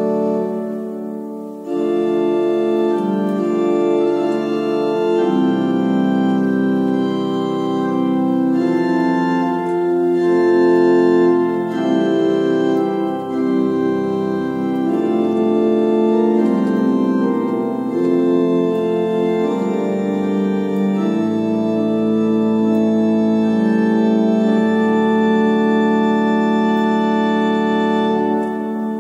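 Sampled pipe organ playing sustained chords on its principal stops, part of a principals crescendo. The chords change every second or two. The sound breaks off briefly near the start and comes back in, and the last chord fades away with reverberation near the end.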